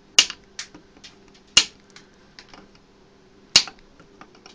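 Side cutters snipping off component leads on the solder side of an ATX power-supply circuit board: three sharp snips a second or two apart, with a few fainter clicks between them.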